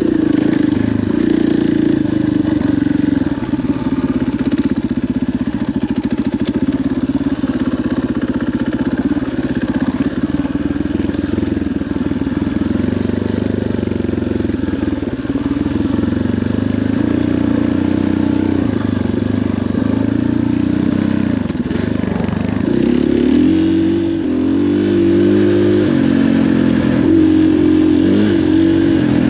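KTM 500 XCF-W dirt bike's single-cylinder four-stroke engine running under way, holding a fairly steady pitch, then rising and falling with the throttle over the last several seconds.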